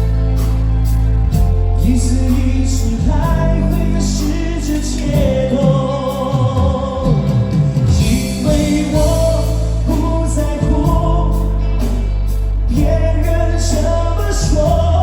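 Live pop music: a male singer with instrumental accompaniment, playing steadily throughout.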